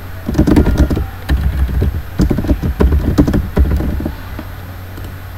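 Typing on a computer keyboard: several quick runs of key clicks, stopping about four seconds in.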